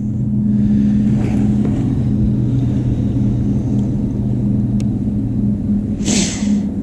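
Boat motor running with a steady low hum at two fixed pitches. A short hiss comes about six seconds in.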